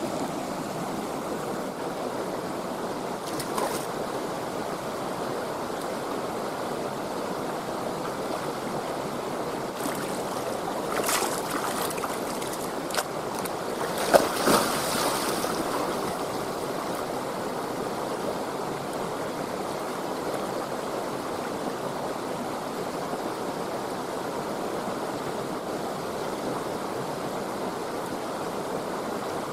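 Mountain river flowing steadily over rocks. About halfway through, a person jumps feet-first into the pool: one sharp splash, then a couple of seconds of churning water.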